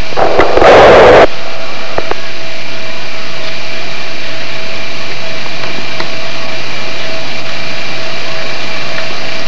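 Steady loud hiss with a constant thin hum, the noise of an old camcorder's audio track. A short loud rushing burst comes about half a second in.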